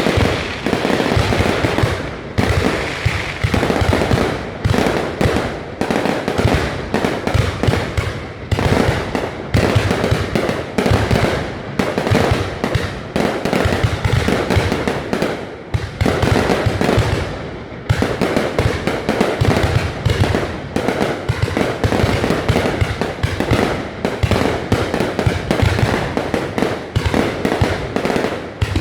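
Fireworks display: a dense, unbroken barrage of bangs and crackling shell bursts, with many sharp reports overlapping one another.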